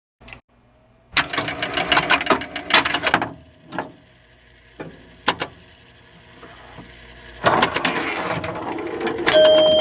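Mechanical clicking and clattering in fast runs with a few single clicks between them, then steady ringing tones starting near the end.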